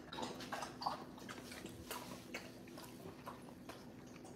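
A dog chewing softly: faint, scattered clicks and short smacks over a low steady hum.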